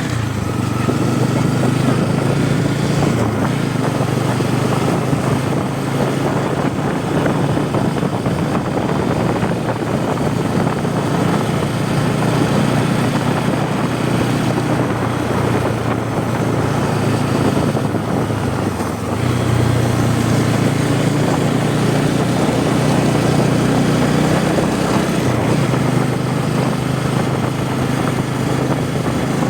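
Bajaj Pulsar N250's single-cylinder engine and exhaust running steadily while riding. About two-thirds of the way through, the engine note eases off briefly, then picks up again.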